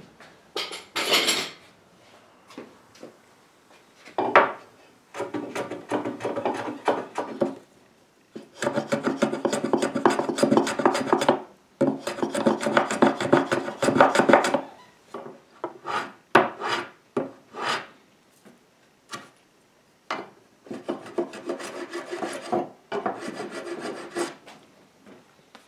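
A hand tool scraping and rubbing across an oak tabletop in several bursts of quick strokes, with short pauses between them.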